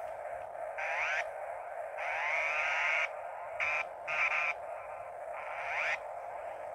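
Korg Monotron Delay analogue ribbon synthesizer played by fingertip on its ribbon keyboard: a steady buzzing drone with rising pitch sweeps laid over it. There is a quick rise about a second in, a longer sweep from about two to three seconds that climbs and levels off, two short bursts around four seconds, and a last rising sweep near six seconds.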